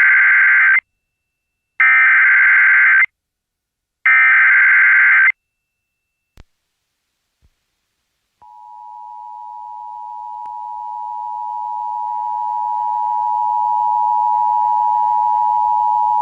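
Emergency Alert System start of an alert: three short bursts of warbling digital data tones (the SAME header), each a little over a second long. After a pause comes the EAS two-tone attention signal, a steady dual-pitch tone that grows louder over several seconds and cuts off near the end.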